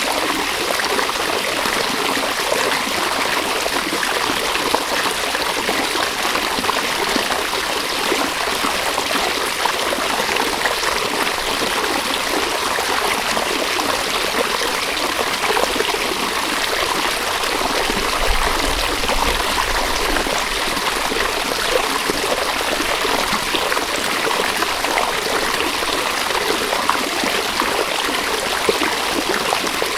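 A river flowing steadily, an even rushing and trickling of water over stones.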